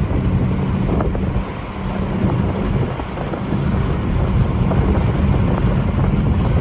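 Acura TL Type-S V6 engine with an AEM V2 cold-air intake, running as the car drives, with wind and road noise. The sound eases about a second and a half in and builds again from about three and a half seconds.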